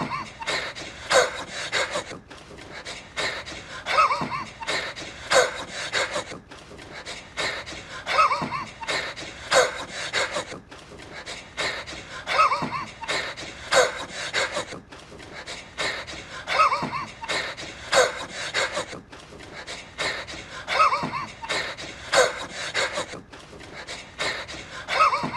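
A man wheezing in a series of short, panting breaths. The same few-second stretch repeats about every four seconds.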